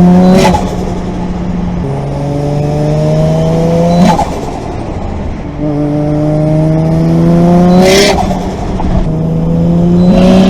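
Turbocharged 1JZ-GTE straight-six pulling through the gears, its note climbing under load. Three times, about four seconds apart, the throttle lifts for a shift and the turbo flutters in a short chattering hiss before the engine pulls again at a lower pitch.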